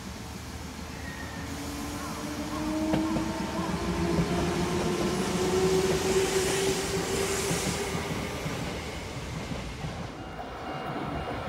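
Sanyo Electric Railway electric train running past on the tracks below, its wheels rumbling on the rails and its motors giving a whine that rises slowly in pitch as it gathers speed; the sound swells over the first few seconds and fades toward the end.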